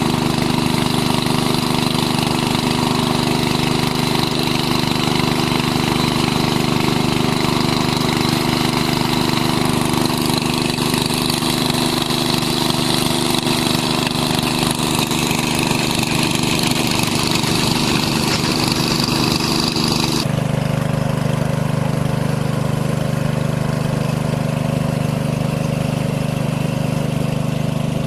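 A small engine running steadily at an even speed. About two-thirds of the way through, the sound changes abruptly and the higher hiss drops away.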